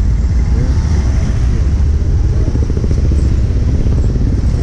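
Motorcycle ride through traffic: the bike's engine running along with a steady low rumble of wind on the on-board camera's microphone.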